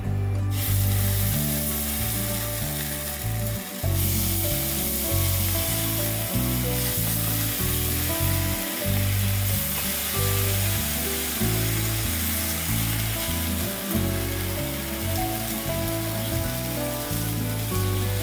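Food frying in a hot pan, a steady sizzle that starts about half a second in.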